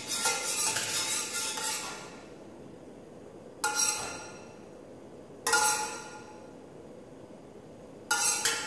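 Metal ladle scraping around the inside of a wok as the oil heats, then knocking against the wok three times, each knock ringing out for about a second.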